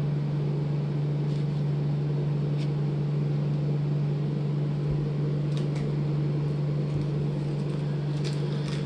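Steady low hum with a constant tone and an even hiss, with a few faint ticks and rustles of trading cards being handled and flipped.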